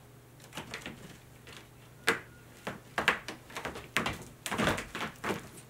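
Munchkin cat's claws gripping and scratching a carpet-covered climbing wall as it climbs, a series of irregular scrapes and knocks that grow louder and closer together in the second half.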